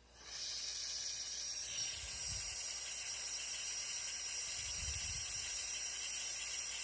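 Soldering torch flame hissing steadily, heating a bronze master to silver-solder a sprue onto it; the hiss comes in just after the start.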